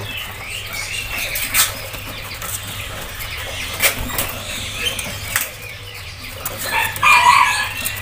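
Caged birds fluttering and flapping their wings, with a few sharp knocks against the cages and bird calls around them; the calls get louder about seven seconds in.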